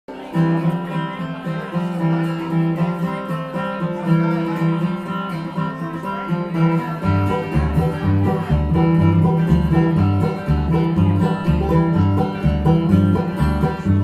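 Live bluegrass band playing an instrumental intro on acoustic guitar and banjo; an upright bass comes in with a low, walking bass line about halfway through.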